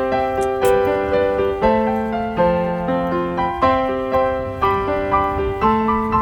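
Background piano music: struck chords and melody notes in a steady, even rhythm, each note fading after it is struck.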